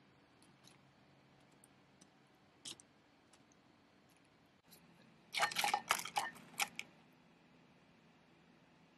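A few faint clicks of a glass jar being handled, then about five seconds in a second and a half of crisp crackling as tortilla chips in a bowl are handled.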